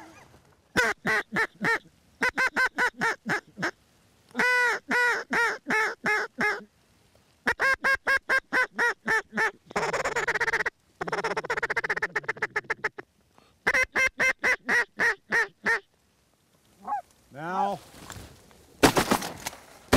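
Runs of quick, evenly spaced quacking calls, about four to five a second, in bursts of several notes with short gaps between them, and a denser stretch of chatter midway. A sharp bang near the end.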